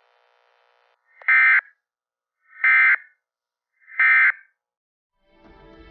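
Three short bursts of Emergency Alert System SAME data tones, evenly spaced about a second and a half apart: the end-of-message code that closes an EAS broadcast. Music fades in near the end.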